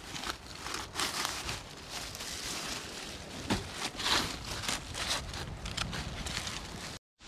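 Rustling and crackling of leaves, stems and vines in forest undergrowth, with a few louder snaps in the middle; it cuts off abruptly near the end.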